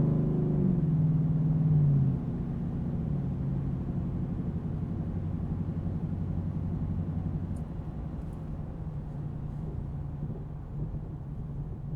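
Ford F-150 5.0L V8 with a Flowmaster Outlaw cat-back exhaust, heard from inside the cab. The engine note falls as the throttle comes off, drops sharply about two seconds in, then settles into a steady low exhaust drone at lower revs.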